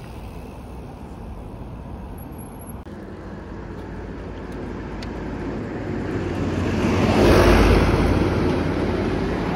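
A box truck driving past close by: its engine and tyre noise builds over several seconds, peaks about three quarters of the way through, and stays loud after.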